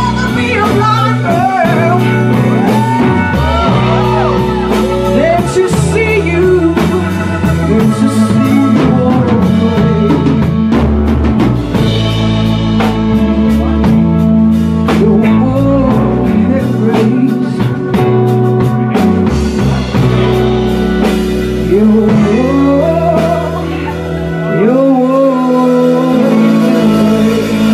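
Live blues band playing a slow blues-soul number: a woman singing with bending vocal runs over electric guitar and keyboard. The bass end drops out briefly near the end.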